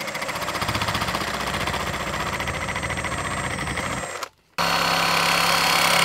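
Reciprocating saw (Sawzall) cutting through a white PVC drain pipe, running with a fast, even buzz. It stops briefly a little past four seconds in, then starts again and cuts on, louder.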